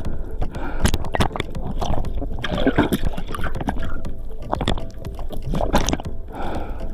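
Underwater water noise, gurgling with a steady low rumble, broken by many irregular sharp clicks and knocks.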